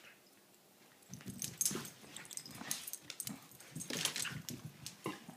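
A Chihuahua making short low play noises, with paws scuffling, as it wrestles a kitten; the sounds start about a second in and come in irregular bursts until near the end.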